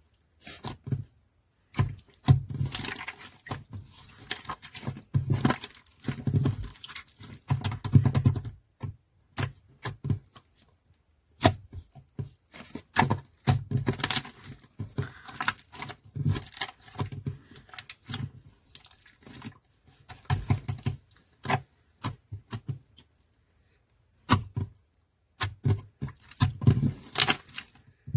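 Pink slime being squished and poked by hand, giving wet clicks, pops and crackles in irregular bursts with short pauses.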